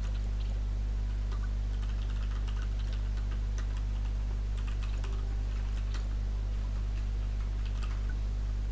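Steady low electrical hum, with many faint, scattered light clicks and scratches over it.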